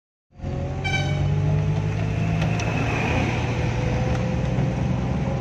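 A vehicle running on a wet road, heard from inside the cabin: a steady low engine drone under a hiss of tyres on wet tarmac. About a second in, a brief high-pitched tone sounds.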